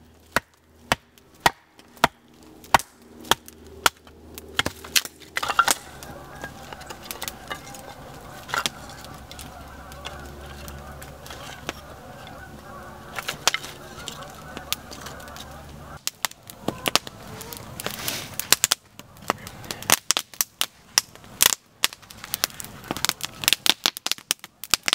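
Small wood campfire with sharp snaps, cracks and knocks as split pine sticks and twigs are broken and laid onto it. A steady low hum sits under it from about five seconds in and stops suddenly about two thirds of the way through.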